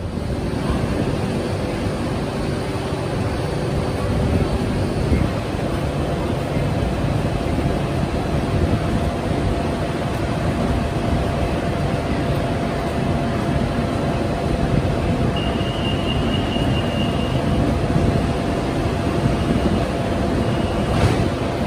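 Steady running hum and rumble of a BTS Skytrain EMU-A1 electric train at an elevated station platform, with a short high beep lasting about two seconds two-thirds of the way in and a brief click near the end.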